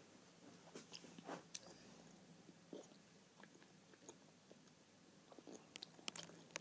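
Faint mouth sounds of a child chewing a stick of very sour gum: a few soft, scattered clicks and smacks in near silence, clustering a little near the end.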